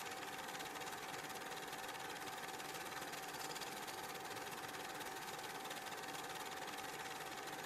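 Steady mechanical whirring with a fine rapid clatter and a constant high hum, as of a film projector running.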